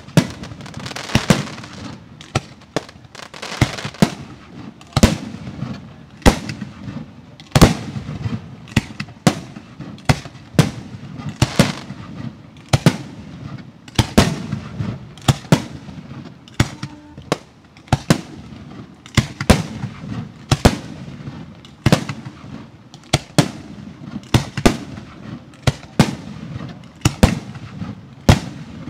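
Professional 1.3G fireworks display firing: a long, irregular run of loud sharp bangs, about one to two a second, with a constant rush of noise between them.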